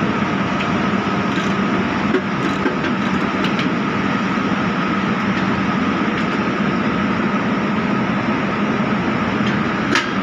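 Steady drone of factory machinery, with a constant low hum and a higher steady whine; a few faint clicks sit under it.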